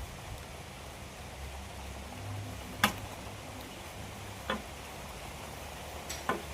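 A few sharp knocks over a steady low hum and hiss: a loud one about three seconds in, a lighter one a second and a half later, and a quick pair near the end.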